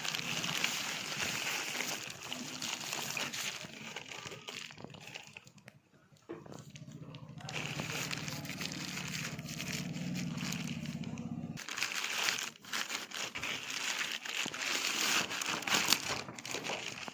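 Plastic packaging crinkling and rustling as grocery items are handled and unwrapped, with scattered small clicks. For about five seconds in the middle the crinkling gives way to a steady low hum.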